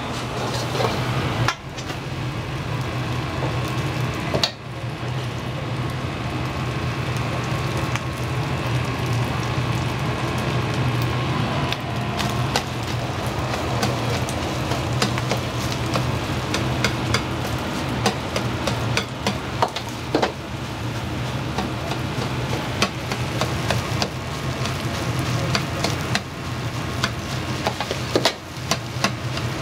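Food stir-frying in a wok: a steady sizzle over a low hum, broken by frequent sharp clicks of a metal ladle striking the pan. The sizzle drops away briefly three times.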